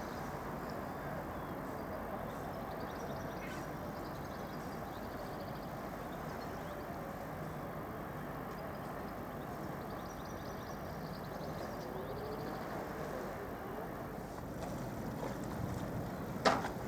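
Steady low rumble of a ferry's engines and its wash across the harbour, with a single sharp click shortly before the end.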